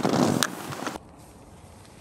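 Rustling of nylon tent and sleeping-bag fabric as someone moves inside a tent, with a couple of sharp clicks, cutting off abruptly about a second in. A faint low rumble follows.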